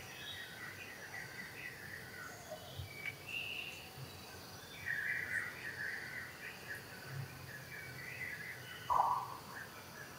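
Birds chirping and calling on and off, with a short, sharper call about nine seconds in.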